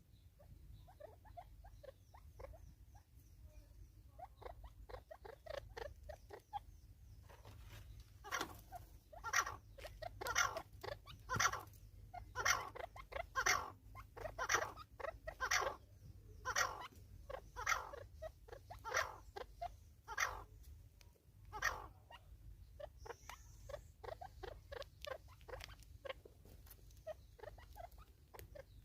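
A long run of short, repeated animal calls or squeaks, faint at first, then louder and coming about one or two a second through the middle, fading again near the end.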